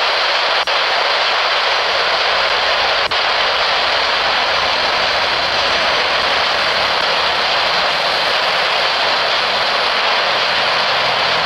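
Loud, steady hiss from an airband radio receiver between transmissions, open and carrying no voice. It breaks off for an instant twice in the first few seconds.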